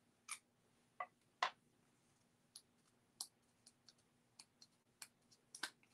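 Faint, irregular small clicks and crackles of a strip of cardstock being handled between fingers, a dozen or so scattered ticks with the sharpest about one and a half seconds in.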